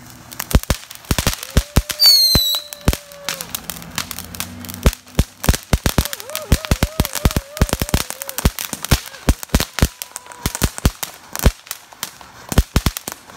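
Ground fountain firework burning, crackling with many sharp pops throughout. Whistling tones come and go over the crackle: a brief high whistle about two seconds in, and a warbling whistle from about six to ten seconds.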